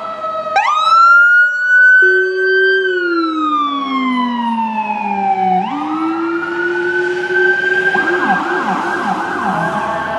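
Siren on a Ford F-550 PL Custom ambulance as it pulls away on a call: a wail that rises, holds, falls slowly and rises again, then switches to a fast yelp near the end.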